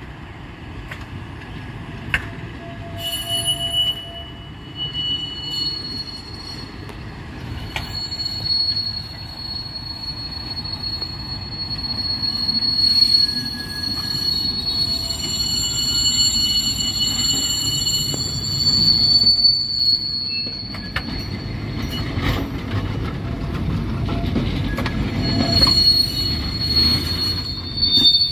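Steel wheels of two coupled 1949 St. Louis Car streamliner trolleys squealing against the rails in high steady tones as they round a tight curve. Under it a rumble with a few sharp clicks grows louder as the cars pass close by near the end.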